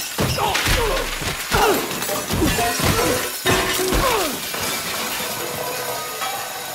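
A rapid string of crashes: bodies slamming into walls and the floor, metal pots and pans clattering and ringing, and glass shattering. The impacts thin out after about four and a half seconds.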